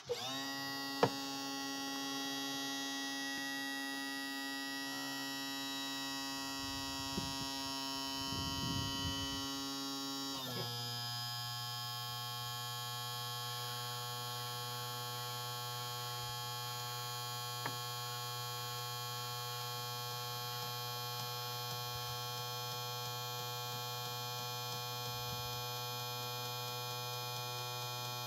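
Electric motor and pump of a Showa power trim and tilt unit on a Yamaha 150 outboard running steadily, tilting the engine up very slowly: a steady hum with a high whine. A sharp click about a second in; about ten seconds in the note drops and the motor runs on at the lower pitch.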